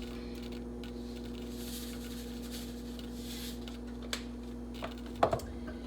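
Sea salt shaken into a pot with a soft hiss, then a few sharp clicks and knocks of spice containers being handled, over a steady hum.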